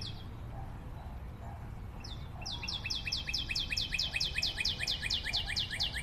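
A songbird singing a rapid trill of short, high, down-slurred whistled notes, about five a second. The song breaks off just after the start and comes back about two seconds in as a longer run of notes.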